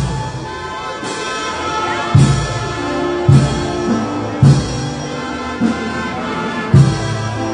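Slow processional march played by a band: held chords over a bass drum and cymbal stroke about once a second, starting about two seconds in.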